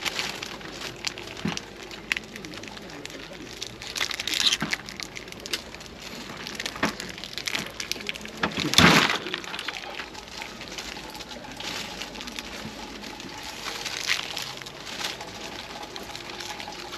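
Scattered clicks and knocks over a steady background, with one louder, sharp noisy burst about nine seconds in.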